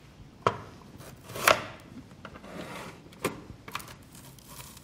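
Plastic clacks and knocks of an Alligator onion peeler as an onion is set on its spike and the hinged cutter lid is pressed down onto it: four sharp clacks, the loudest about one and a half seconds in.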